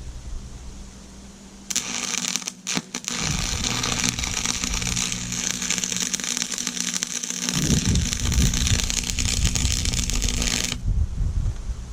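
Stick-welding arc crackling and sizzling steadily for about nine seconds. It strikes about two seconds in, sputters and breaks once just after, then holds and cuts off sharply near the end. A low steady hum runs underneath.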